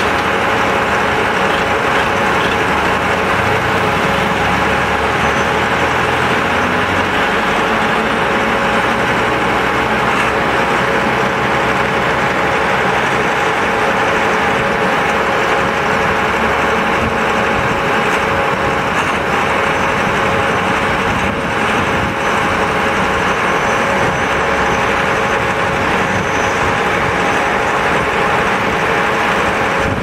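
Concrete pump with mixer running steadily: a constant loud machine drone with a steady hum. For about the first dozen seconds a deeper engine rumble, from the wheel loader feeding the hopper, lies under it.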